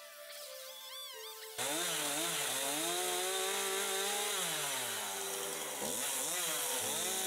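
Petrol chainsaw cutting into a log, cutting in abruptly about a second and a half in; its engine pitch rises and dips repeatedly as the chain bites into the wood.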